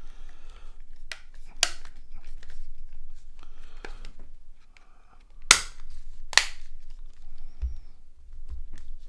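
Plastic mobile phone body shell parts being handled and pressed together: a few sharp snapping clicks, two loud ones about a second apart past the middle, over light rustling.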